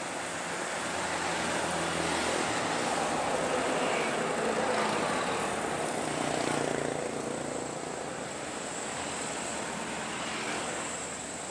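Traffic noise on a steep uphill road: heavy diesel trucks, a Scania P380 among them, working hard up the climb while motorcycles pass close. Louder in the first half, easing after about seven seconds.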